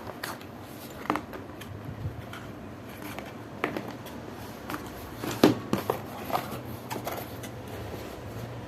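Box contents being handled during an unboxing: scattered clicks and rustles of plastic and paper packaging, busiest about five to six seconds in, over a faint steady low hum.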